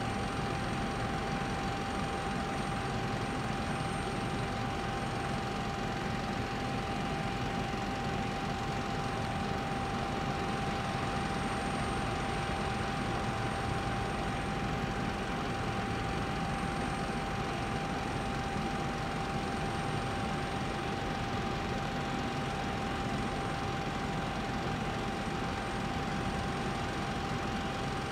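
Parked Boeing 767 heard close by: a steady, even rushing noise with a constant high whine that holds at one pitch throughout.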